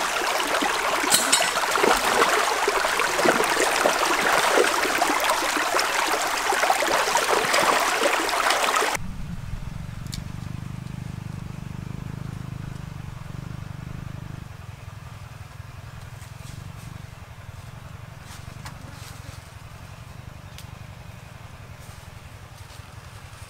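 Shallow stream running over rocks, a steady rush of water. About nine seconds in it cuts off abruptly, leaving a much quieter low steady rumble.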